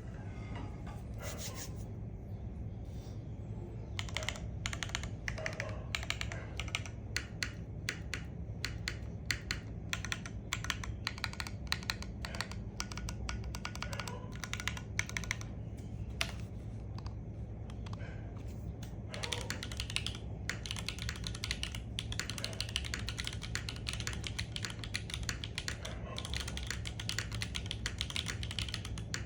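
Typing on a Tofu TKL mechanical keyboard with Gateron Type R switches, Knight V4 stabilizers and SWG beige keycaps: a fast, irregular run of key clacks, sparser for a few seconds near the start and again briefly past the middle. A steady low hum runs underneath.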